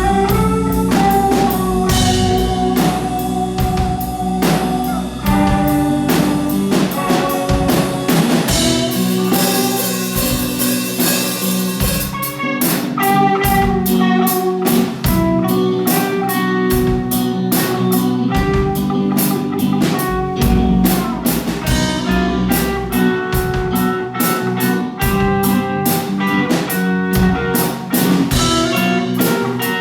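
A band playing rock music: guitar chords over a drum kit keeping a steady beat.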